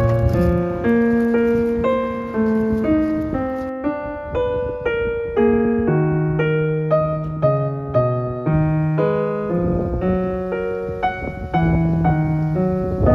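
Background piano music: a gentle melody of single notes over slower low notes.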